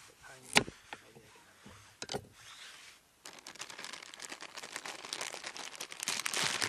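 Camp food-prep handling noises: a sharp knock about half a second in and a lighter one about two seconds in, then a few seconds of dense crinkling rustle.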